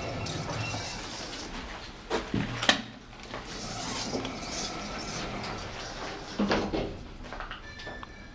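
Lift doors sliding open at a floor, with a few clunks about two seconds in and again later.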